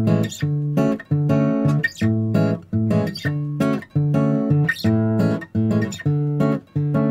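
Bossa nova background music on acoustic guitar: chords played in a steady, clipped rhythm with short breaks between them.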